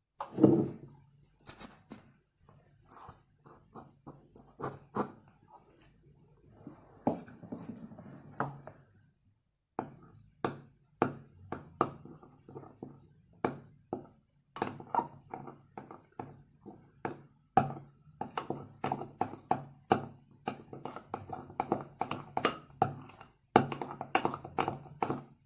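Slime being mixed by hand with a utensil in a container: a long run of sharp clicks and taps, several a second, broken by a few short cuts.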